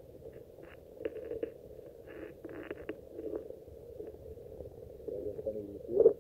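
Muffled underwater sound picked up by a submerged phone's microphone: a low, dull rumble of water and handling, with a few soft scrapes about a second in and a louder knock near the end.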